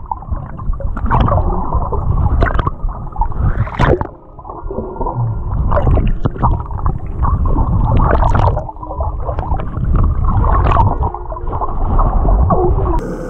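Muffled underwater sound of sea water churning and sloshing around a submerged camera, with a heavy low rumble and a few sharp clicks.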